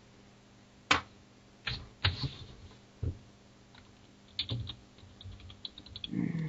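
Irregular sharp clicks and taps: single ones spaced a second or so apart, then a quicker run of light ticks near the end.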